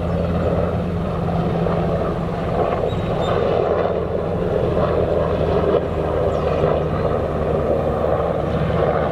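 Helicopter flying over, a steady drone of engine and rotor that holds without a break.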